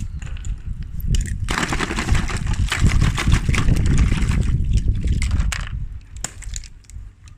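Ice cubes scraping and clattering against each other, a rough crunchy rattle that swells about a second and a half in and dies away near the end, with scattered clicks around it.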